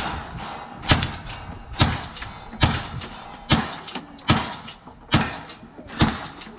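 Rifle fired seven times in a steady string, one shot a little under every second, each sharp crack followed by a short tail.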